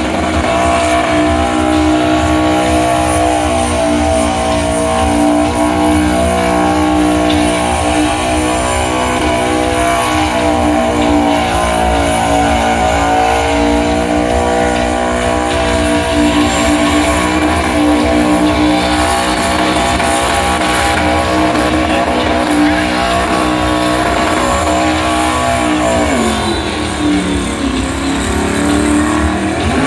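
LS V8 engine of a burnout car held at high revs while its rear tyres spin in a burnout, a steady high engine note. About 26 seconds in the revs drop, then climb again near the end.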